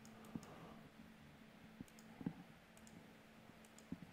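A handful of faint, scattered clicks of a computer mouse, over a faint steady hum.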